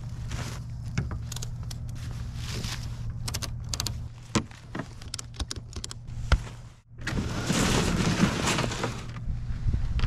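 Clicks, knocks and fabric rustling of camping gear being loaded onto plastic sleds and strapped down. A brief drop-out comes near the middle, followed by about two seconds of louder rustling and crunching.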